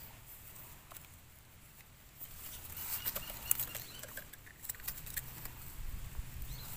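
Light scraping, rustling and small clicks of a knife trimming soil off the base of freshly picked Amanita mushroom eggs and of hands handling the mushrooms. It is quiet at first; the scattered clicks begin about two seconds in, with one sharper click about halfway through.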